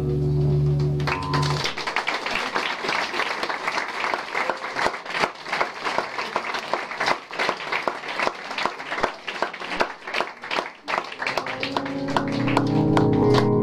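Drum kit played freely with fast, irregular strikes on the drums and cymbals. A sustained organ-like drone fades out about two seconds in and swells back near the end.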